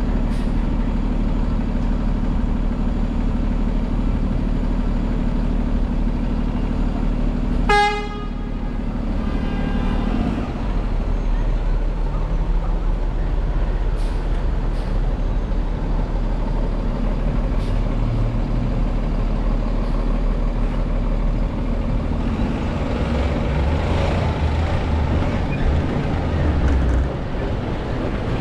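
Steady low rumble of engine and city traffic while driving, with a short vehicle horn toot about eight seconds in.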